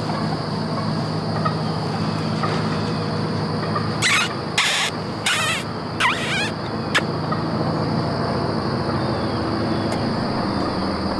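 A steady chorus of insects in the woods, with a few short, sharp scraping and rustling noises close to the microphone between about four and seven seconds in.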